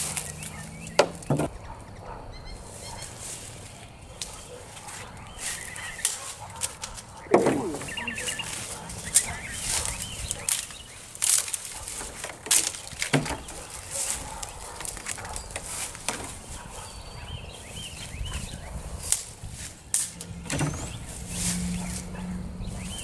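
Dry, brittle stick weeds being pulled and broken off by hand, with irregular crackling, rustling and sharp snaps of stems. A bird calls in the background a few times about a third of the way in.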